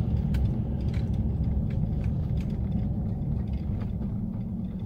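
Vehicle cabin noise while driving slowly on a paved road: a steady low rumble of engine and tyres, with faint scattered ticks.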